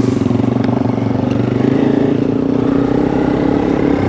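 Motorcycle engine idling steadily, with an even pulsing beat and a couple of faint clicks.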